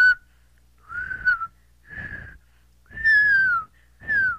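A person whistling an imitation of a bird call: five whistled notes about a second apart, the later ones sliding down in pitch, the last short and falling steeply.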